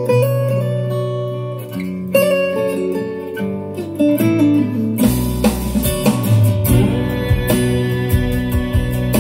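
Recorded music played through JBL Studio 530 bookshelf speakers with stereo subwoofers: an instrumental guitar intro, with drums and deep bass joining about five seconds in.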